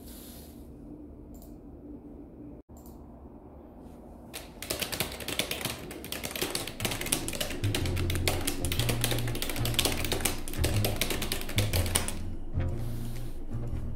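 Background music with a stepping bass line and a dense run of rapid clicks, coming in about four and a half seconds in after a quieter stretch.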